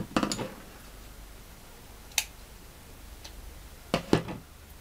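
Light clicks and rustles from handling sewing tools and fabric, including a pair of scissors. There is a cluster at the start, a single sharp tick about two seconds in, and a few more clicks near the end.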